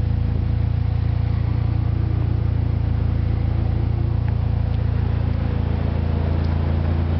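A vehicle engine idling steadily: an even, low drone with a rapid fine pulse.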